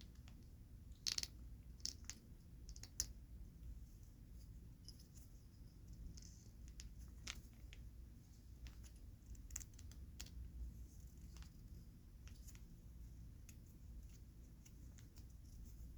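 Faint, scattered taps, clicks and light scratches of fingers handling large Pokémon cards, with the sharpest taps about a second in and near three seconds, over a low room hum.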